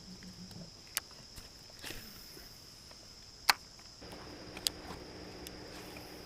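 Steady insect trilling with a few sharp knocks on the jon boat, the loudest about three and a half seconds in. About four seconds in, a low steady hum starts up: the boat's small motor running at low speed to move the boat.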